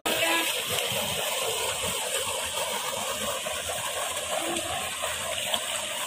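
Water from a small stream rushing and splashing down over rocks in a steady flow.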